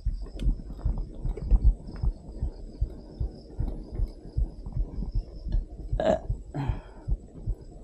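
Wind buffeting the microphone while riding: an uneven low rumble of thumps, with a brief sharper sound about six seconds in.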